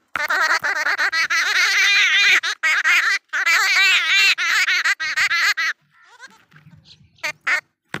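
Jungle babbler chattering loudly right at the microphone: a rapid, wavering run of calls for about six seconds with brief breaks, then a few short calls near the end.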